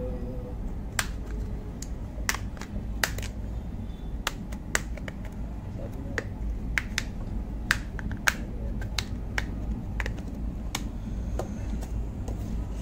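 Many sharp plastic clicks at irregular intervals as the snap-fit back cover of a Xiaomi Redmi 5A is prised off around its edges, its clips popping loose one after another, over a steady low hum.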